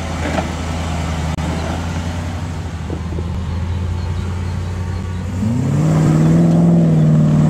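Engine of an off-road 4x4 trial vehicle running at low revs, then revving up about five seconds in and holding at higher revs.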